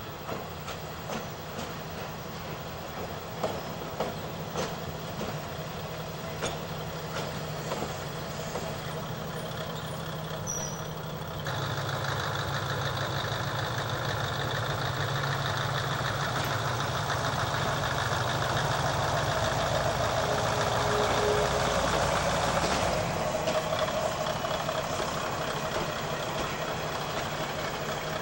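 Shimabara Railway KiHa 22 diesel railcar running slowly past with a steady low engine drone and scattered clicks. About eleven seconds in, the engine gets louder and fuller as it powers up, then falls back near the end.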